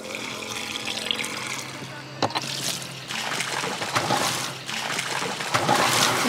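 A water hose running and splashing onto a boat's deck. It starts loudly about two and a half seconds in, just after a single click.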